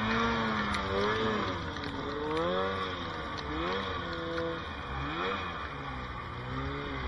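Snowmobile engine revving up and down again and again as it is throttled through deep powder, its pitch rising and falling every second or so.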